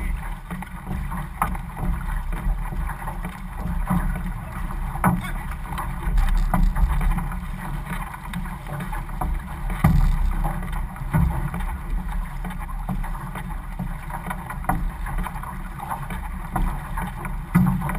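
Outrigger canoe under paddle: water rushing and splashing along the hull as the crew strokes, with sharp splashes or knocks at irregular intervals.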